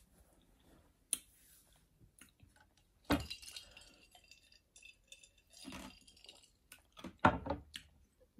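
Sparse, quiet eating and drinking sounds: chewing, and a clear glass clinking as a drink is sipped from it.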